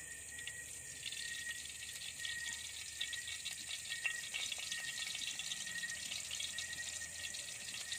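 Cooking oil poured into a hot iron wok, crackling and sizzling irregularly from about half a second in.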